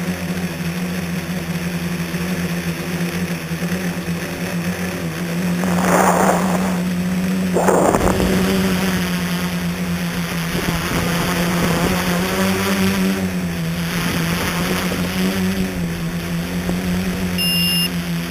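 Electric motors and propellers of a scratch-built tricopter, heard from on board, humming steadily in flight. Two brief louder surges of rushing air come about six and eight seconds in, and the pitch rises slightly near the end.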